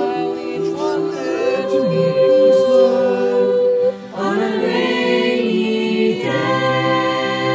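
A choir of mixed voices singing long held chords in close harmony, a cappella. The chord breaks off briefly about four seconds in, and new chords come in just after and again about six seconds in.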